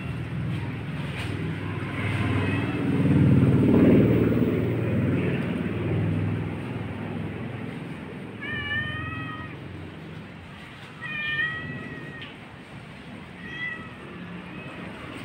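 Street cat meowing repeatedly as it follows, with the three clearest meows in the second half. A low rumbling noise under it is loudest about three to four seconds in.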